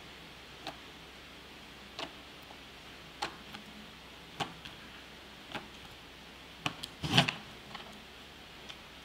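Light sharp clicks about once a second as multimeter probe tips tap the metal ends of 18650 lithium cells one after another. About two-thirds of the way through comes a louder cluster of knocks as the cells are shifted in the plastic tray.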